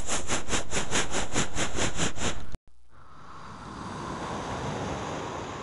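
Car sounds: a loud, fast, rhythmic chugging of about five beats a second that cuts off abruptly, then a steady rushing of a car on the move that swells and fades.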